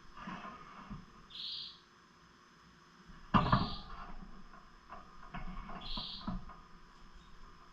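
Pet lovebirds giving short high chirps, two of them several seconds apart, with a loud sharp knock about three seconds in and smaller clicks and scuffling after it.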